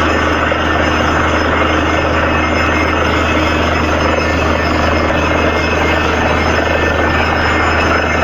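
Borewell drilling rig running steadily and loudly, its engine and drilling noise unbroken.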